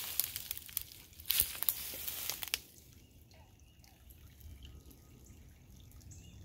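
Rustling and crackling in dry leaf litter and brush, in irregular bursts, the loudest about a second in; it stops about two and a half seconds in, leaving near quiet.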